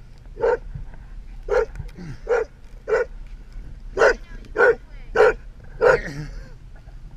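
A dog barking, about eight barks at irregular intervals of half a second to a second.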